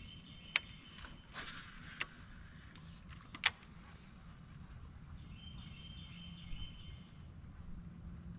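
Quiet open-water ambience with a steady low rumble, broken by three sharp clicks of fishing gear knocking against the kayak in the first four seconds, the loudest about three and a half seconds in. A faint high call sounds from about five to seven seconds in.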